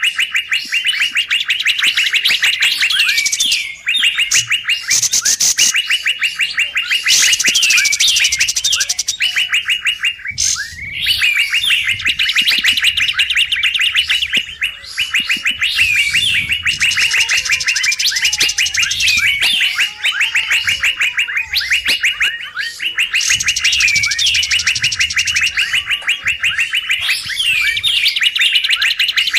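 Recorded lure calls of the kapas tembak bulbul: fast, noisy chattering runs, repeated almost without a break, with sharper high notes breaking in every few seconds.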